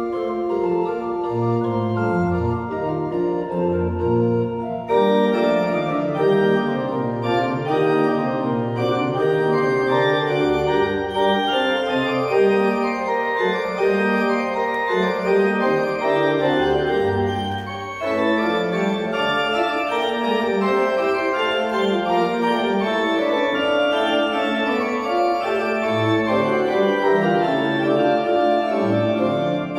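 Pipe organ playing a full-textured piece of many held notes over a moving bass line. The sound grows fuller and brighter about five seconds in, with a short break about eighteen seconds in.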